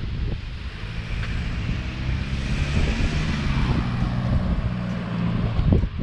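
A motor engine passes at an even pitch, its hum starting about a second in and fading near the end, with a hiss that swells in the middle. Wind buffets the microphone throughout.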